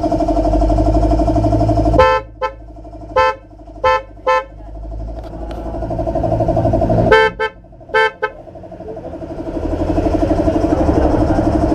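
Aftermarket vehicle horns on test: a held low horn tone with a fast flutter, twice broken off by short toots on a higher-pitched horn, first five toots, then four, before the held tone comes back.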